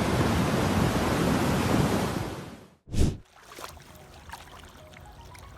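Mudflow of water and debris rushing down a canyon road below a wildfire burn scar: a heavy, steady rushing that fades out about two and a half seconds in. Then one short, loud whoosh, followed by faint music.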